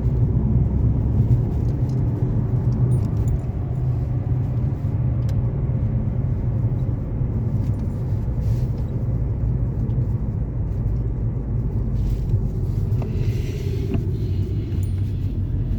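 A VW Scirocco being driven: a steady low engine and road rumble.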